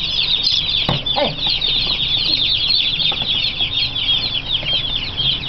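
A flock of baby chicks peeping without pause, many short high falling peeps overlapping. A light knock sounds about a second in.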